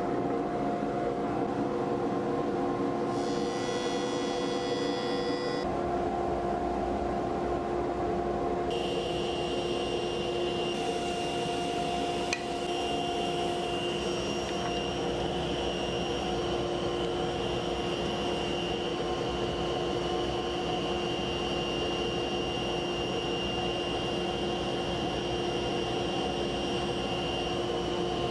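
Woodworking shop machinery running steadily: a jointer's motor hum, with a board fed over the cutterhead a few seconds in. A second, higher machine whine joins about nine seconds in, and there is a single sharp click a few seconds later.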